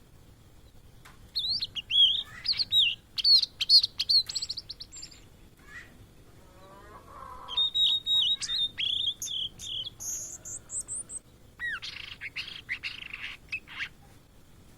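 Blue-and-white flycatcher singing in three bursts of quick, high whistled notes and warbles, each a few seconds long, with short pauses between them.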